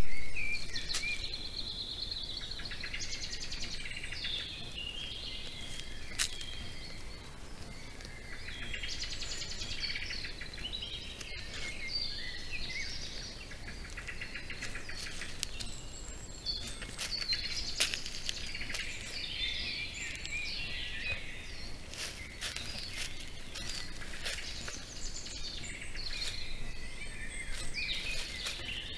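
Several woodland songbirds singing, overlapping phrases almost without pause, over a steady low hiss. A few sharp clicks stand out now and then.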